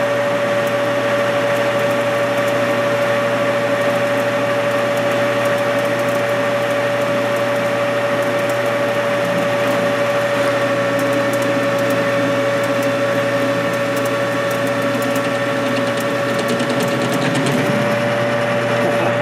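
Metal lathe running under a heavy cut, a CNMG carbide insert turning mild steel: a steady whine over the hiss of the cut, with light ticking from about ten seconds in. The cut is heavy enough to push the workpiece back into the chuck.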